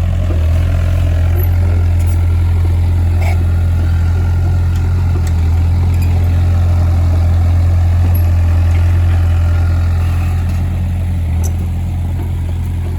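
Heavy engine running steadily with a deep, even hum and a few faint clicks, easing slightly after about ten seconds.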